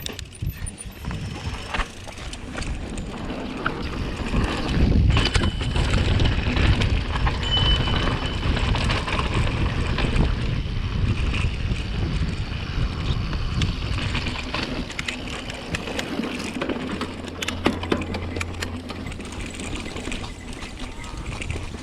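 Mountain bike being ridden on a dirt trail: tyres rolling over dirt with scattered clicks and rattles from the bike, and wind rumbling on the microphone, growing louder from about four seconds in.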